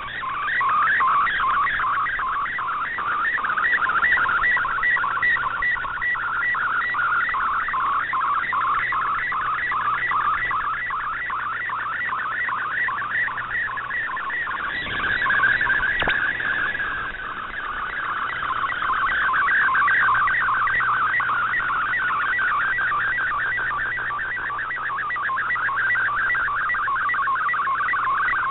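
Shortwave MFSK picture transmission heard through an Icom IC-R8600 receiver in AM mode: a continuous data tone warbling in a fast, even rhythm as a picture is sent line by line. About halfway through it turns briefly steadier.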